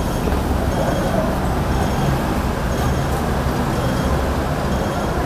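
Hong Kong tram running along its street rails, a steady low rumble of the car and its wheels mixed with road traffic.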